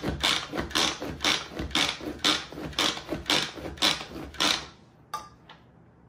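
Pampered Chef manual food processor being pumped by its hand plunger about twice a second, each stroke spinning the blades through tomatoes, onion and jalapeño to chop pico de gallo. The pumping stops a little past halfway, followed by a couple of light clicks.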